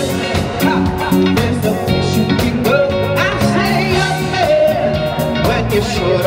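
Live band playing an upbeat rock number on drum kit, electric guitar, bass guitar and keyboard, with a trombone on stage, while a singer sings over it.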